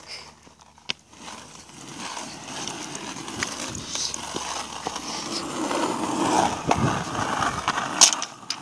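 Skateboard wheels rolling, a rough grinding rumble that grows louder over the first several seconds, with scattered clicks and a sharp knock near the end.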